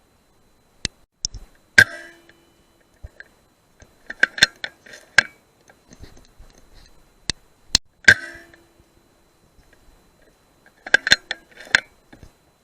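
Two sharp, muffled rifle shots about six seconds apart, each with a short ringing tail, and a few seconds after each a quick run of metallic clicks as the rifle's bolt is worked to reload.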